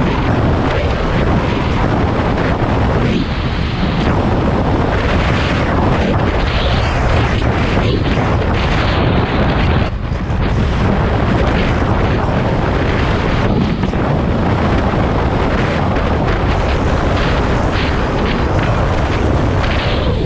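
Heavy wind buffeting the microphone of a camera on a motorcycle riding at road speed, a dense, loud rumble with a brief dip about halfway through.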